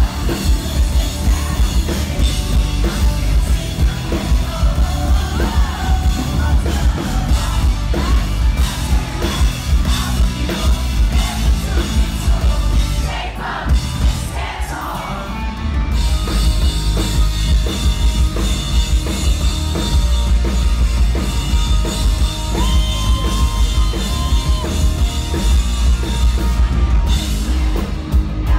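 Live rock band playing loud in a club, heard from in the crowd: drums, electric guitars and bass with a singer. About halfway through the music dips briefly, then carries on.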